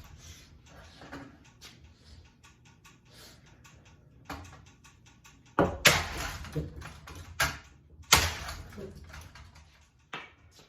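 Ceiling fan being struck hard: two loud hits about six and eight seconds in, with smaller knocks and rattles of loose parts between them.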